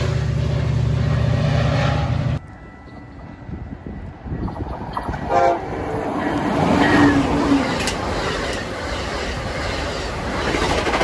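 Metra diesel locomotive working hard as it pulls its commuter train away, engine running loud and steady until a cut about two seconds in. Then an Amtrak passenger train led by a Siemens Charger approaches and gives short horn sounds, and its cars roll past close by with wheel and rail clatter.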